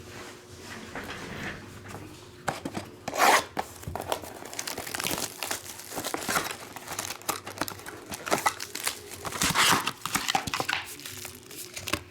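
Trading card pack wrappers being torn open and crinkled by hand: irregular crackling with louder tearing bursts about three seconds in and again near the end.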